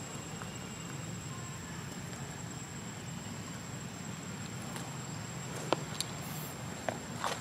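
Quiet outdoor woodland ambience: a steady high insect drone over a low background hum, with a few sharp clicks or rustles in the last two seconds.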